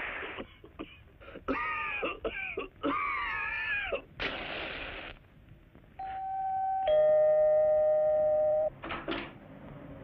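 Several short, wavering meows from a cartoon cat. Then a two-note doorbell chime: a higher note, followed by a louder, held lower note.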